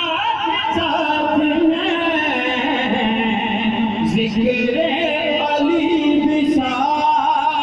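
A man reciting a naat, singing long, wavering drawn-out notes with no words picked out.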